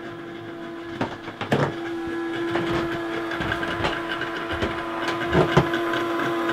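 Submersible bilge pump running in a bucket with a steady electric hum, pumping descaling solution through a marine diesel's raw-water cooling circuit. The hum grows louder about a second and a half in, and a few knocks sound about a second in and again after five seconds.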